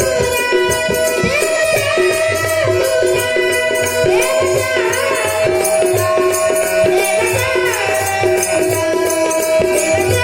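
Marathi devotional bhajan: a child singing a gliding melody over a steady harmonium, with fast jingling hand percussion and a drum keeping time.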